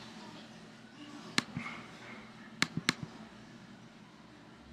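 Three sharp clicks, one about a second in and two in quick succession a little past halfway, over faint room tone.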